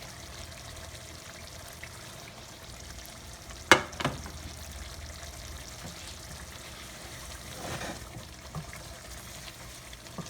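Chicken frying in a little oil in a pot, a steady low sizzle. Two sharp knocks about four seconds in, and a brief scrape near eight seconds.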